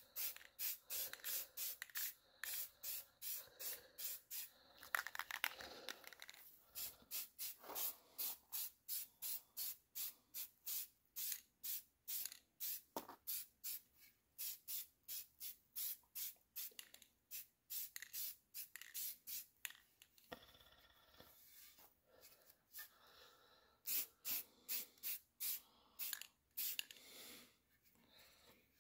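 Aerosol spray-paint can hissing in many short spurts, about two a second, as black paint is sprayed onto an axe head, with a lull of a few seconds about two-thirds of the way through.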